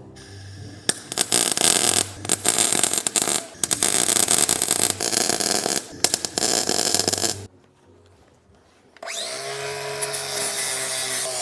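Welder crackling in several bursts of one to two seconds, filling a hole in the rear axle housing. It stops about seven and a half seconds in; background music comes in near the end.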